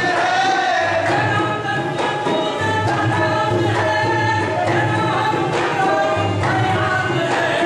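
Qawwali: a group of voices singing a devotional Sufi kalam in unison over rhythmic drum accompaniment.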